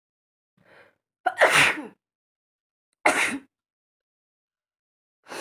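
A woman sneezing twice, each a sudden loud burst, about a second and a half apart, after a soft intake of breath. The sneezes are self-provoked for a sneezing challenge.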